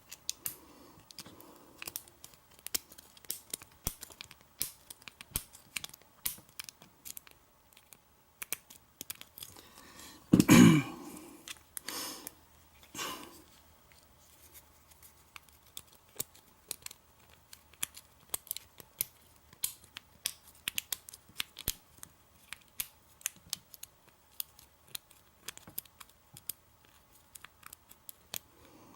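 Lock pick and tension wrench working in a Kwikset KW1 pin-tumbler lock cylinder: a long run of small, quick metallic clicks and scrapes as the pins are worked. A louder knock comes about ten seconds in, followed by two smaller ones.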